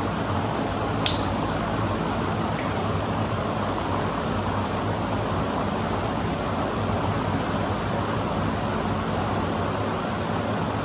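Steady mechanical hum with a low drone underneath, and one light click about a second in.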